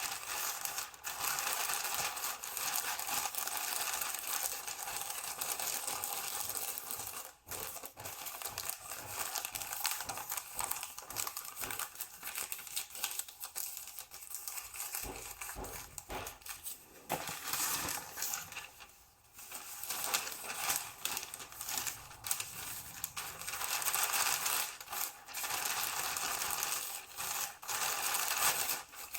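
Continuous rattling and clinking of small hard objects, with a couple of brief pauses.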